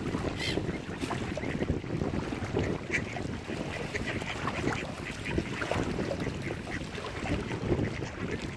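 Mallard ducks quacking now and then over a steady rush of wind on the microphone and lapping water.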